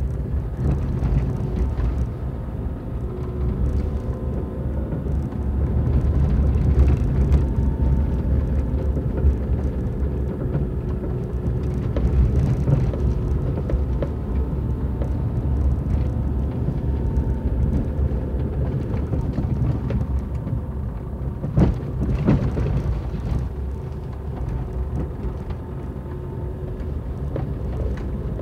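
A car driving slowly on a rough forest road: a steady low rumble of engine and tyres, with a faint engine hum. A few sharp knocks stand out, the loudest about three-quarters of the way through.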